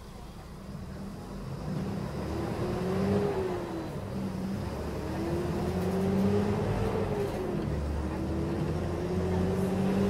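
Mercedes-Benz O500M city bus diesel engine pulling away and accelerating through the gears. Its whine climbs in pitch and drops back at each gear change, three pulls in a row, growing louder.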